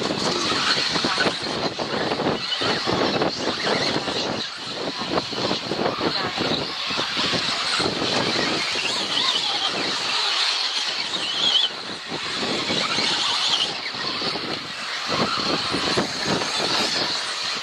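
Radio-controlled 4WD off-road racing cars running on the track: several small motors whine together over a constant hiss, their pitch rising and falling briefly as they speed up and slow down.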